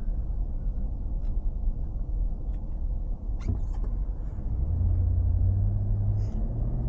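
Car engine and road rumble from a vehicle towing a caravan as it pulls away. A steady engine note comes in about two-thirds of the way through and rises a little near the end as it accelerates.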